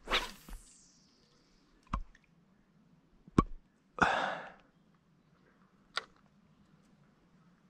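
Handling of a spinning rod and reel: a brief swish right at the start and another about four seconds in, with a few sharp separate clicks in between and near the end.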